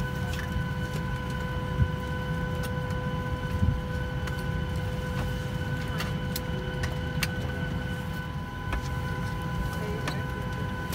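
Steady cabin noise inside a Boeing 737-800: a low rumble under a constant high whine of several tones. Scattered clicks, with two louder knocks about two and four seconds in.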